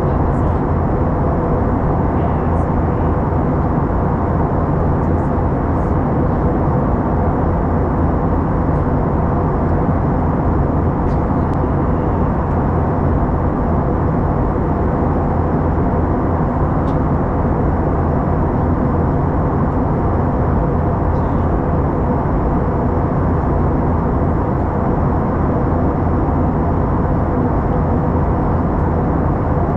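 Steady cabin noise of an Airbus A321-211 in flight, its CFM56 turbofans and rushing airflow heard from a window seat near the wing, as an even, deep noise with a faint steady hum.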